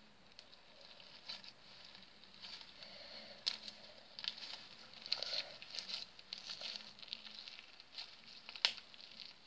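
Slime mixed with shaving foam being kneaded and squeezed in the hands, making faint, irregular squishing and crackling clicks.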